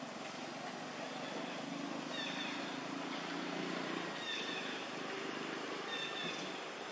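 Macaque giving three short high-pitched calls, each falling in pitch, about two seconds apart, over a low background hum.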